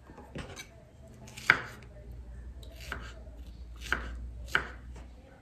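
Kitchen knife slicing fruit, strawberries among it, on a wooden cutting board: about five sharp knocks of the blade on the board, the loudest about a second and a half in.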